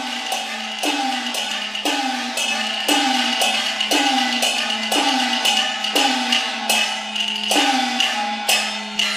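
Chinese opera percussion ensemble: wooden clapper and drum strokes with gongs beating a steady rhythm of about two strikes a second. Each gong note drops in pitch as it rings.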